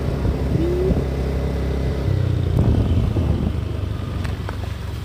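Motorcycle engines running on the move, a steady low drone that rises in level and pitch about two seconds in as the bikes pull along.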